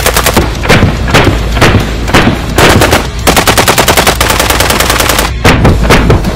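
Genesis Arms Gen 12 semi-automatic 12-gauge shotgun firing shot after shot, about two a second. In the middle comes a fast, rattling run of many shots close together, and then spaced shots again.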